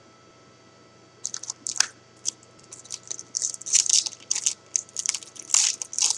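Crinkling and crackling of a foil trading-card pack wrapper being handled, in many short irregular bursts starting about a second in.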